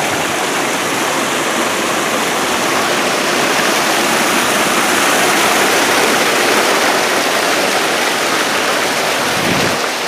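River water rushing over rocks: a loud, steady hiss of fast-flowing water.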